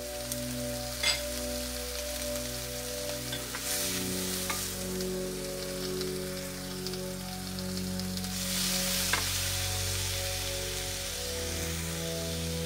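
Chicken breast fillets sizzling in a non-stick grill pan, with a few sharp clicks of metal tongs against the pan as the fillets are lifted and turned. The sizzle gets louder about two-thirds of the way through.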